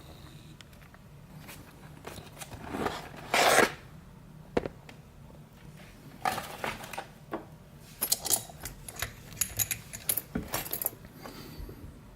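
Metal clicks, clinks and short scrapes from handling a pin-tumbler lock cylinder and small metal tools, with one louder scrape about three and a half seconds in and a quick run of clicks later on.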